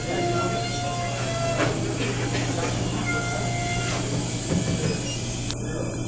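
Steady low machine hum with faint higher whines and a few soft knocks, typical of running equipment such as refrigeration.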